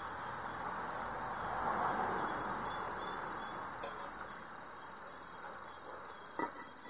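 Crickets trilling steadily in the background, with a couple of light metallic clinks from a steel lid being lifted and set down on a clay cooking pot, the louder one near the end.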